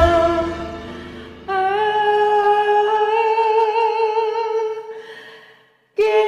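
Unaccompanied voice holding one long note with a wavering vibrato, which slowly fades away. Just before the end a second held note starts abruptly. The backing music dies away in the first second or so.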